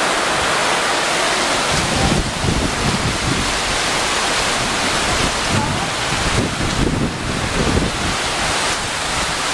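Hurricane wind blowing hard and steadily, with gusts buffeting the microphone from about two seconds in.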